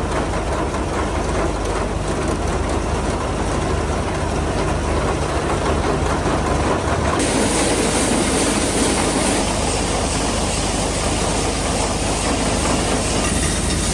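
Vintage SuperB grain dryer running steadily while it unloads dried corn, a continuous machine drone with a low hum. The hiss gets stronger about seven seconds in.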